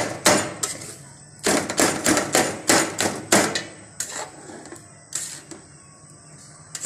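A metal spoon repeatedly tapping and scraping against a steel pan as cooked chicken is mashed into fine crumbs, in quick runs of sharp clicks that thin out and grow fainter after about four seconds.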